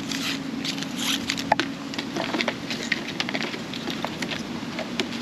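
Packaging being handled: light rustling, tapping and small clicks from the box contents and the USB-C cable's wrapping, with one sharper click about one and a half seconds in, over a faint steady hum.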